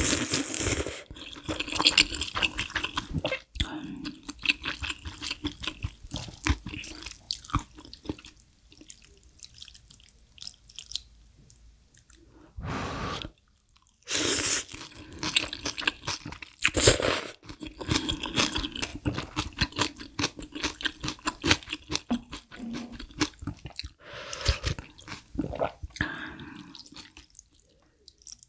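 Close-miked mukbang eating of spicy malatang noodle soup: wet chewing with crunchy bites, and a few loud slurps of noodles and broth from a spoon.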